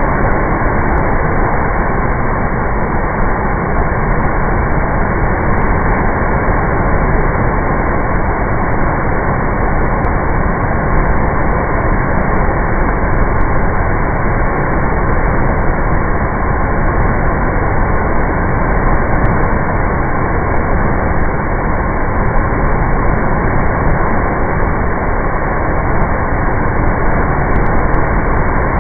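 Bagmati River in flood: a loud, steady rush of turbulent, muddy floodwater. The recording sounds dull, with the high end cut off.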